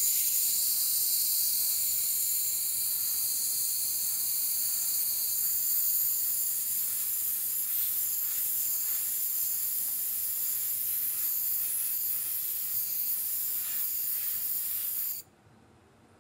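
Steady hiss of a compressed-gas blow-off gun blowing cleaning solvent off a gold-plated sample box; the hiss cuts off about a second before the end.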